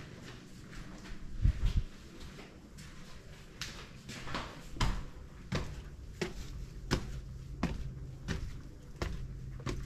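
Footsteps on hard steps, a sharp tread about every 0.7 seconds starting a few seconds in, with a low thud before them.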